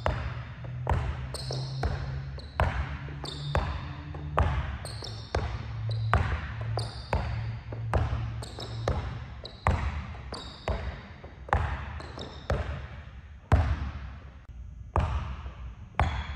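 A basketball dribbled hard and fast on a gym floor, about one and a half to two bounces a second in an uneven, changing rhythm as the player works through crossover and between-the-legs moves. Each bounce rings briefly in the large hall.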